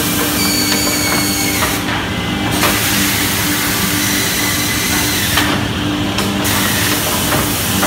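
JESH six-line woodworking drilling machine running: a steady motor hum under a loud, even hiss that twice drops away briefly, with a few light clicks.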